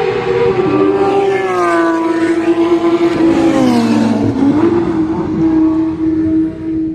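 A Ferrari supercar's engine passing at speed on a race track. The note is loud and steady as the car approaches, drops in pitch as it goes by about three and a half seconds in, then rises again as the car pulls away.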